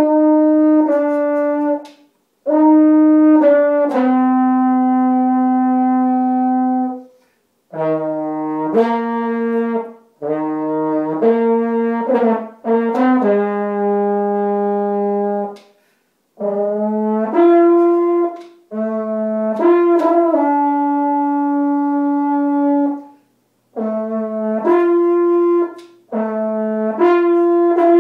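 Solo French horn, unaccompanied, playing a slow melody of held notes in short phrases, with brief pauses between the phrases.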